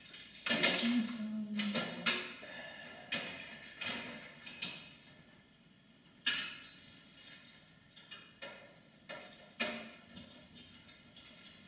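Irregular metal knocks, clicks and scrapes as parts are handled and fitted inside a bare aluminium Power Mac G4 case, with a longer clatter about half a second in and sharp knocks near six and nine seconds.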